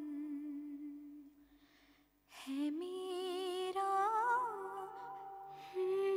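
A woman's voice humming a slow, wordless melody in long wavering held notes. The first note fades away, and after a short lull a new phrase rises in about two seconds in, growing louder near the end.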